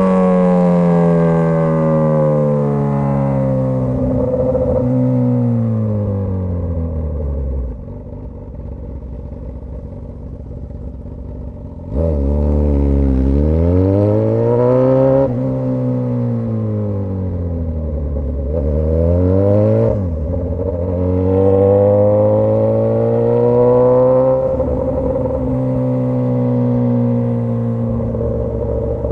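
Straight-piped Suzuki GSX-S1000 inline-four running loud: revs fall away over the first several seconds and it idles low and quieter, then about twelve seconds in it pulls away with a sharp rise in revs. Revs then climb and drop several times, as with gear changes and throttle, and settle to a steady note near the end.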